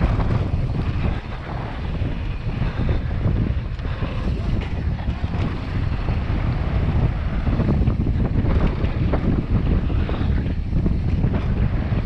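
Wind rushing over the camera microphone while riding a downhill mountain bike at speed on a dirt trail, with a steady low rumble and many small knocks and rattles from the bike over the bumps.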